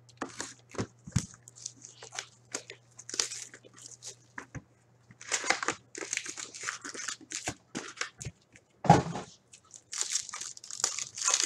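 Plastic shrink wrap crinkling and tearing as a utility knife slits it off a Synergy hockey card box, then cardboard and foil card packs being handled and torn open: a run of short crackles and rustles, with one louder knock about nine seconds in.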